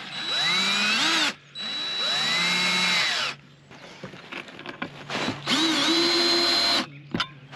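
DeWalt cordless drill driving screws up through a metal shelf bracket into a plywood board. The motor runs three times, its pitch rising and falling with the trigger, with a pause of about two seconds before the third run.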